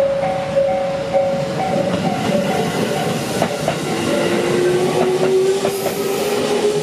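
Level crossing warning bell ringing in its repeating two-tone pattern, drowned out about two seconds in by a passing electric train. The train's wheels clatter over rail joints, and a whine rises slowly in pitch from about four seconds in.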